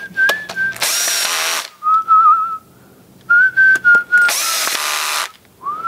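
A cordless drill/driver running in two short bursts of about a second each, driving screws into a plastic drill housing, about a second in and again past four seconds. Between the bursts a person whistles a tune.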